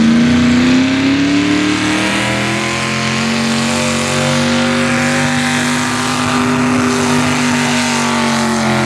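Hot rod pulling tractor's V-8 engine running at high revs under load, pulling the weight-transfer sled down the track. It climbs in pitch over the first couple of seconds, then holds steady.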